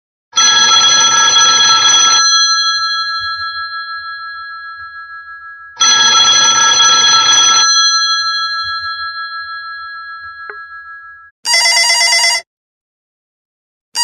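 Classic telephone bell ring: two rings about five and a half seconds apart, each about two seconds of rapid bell strikes that then ring on and fade slowly. Near the end a different, buzzier trilling ring sounds for about a second and starts again.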